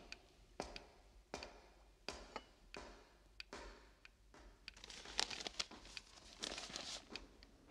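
Light, evenly spaced knocks about every three-quarters of a second. From about five seconds in comes a louder rustling and crinkling of a folded newspaper being picked up from the floor.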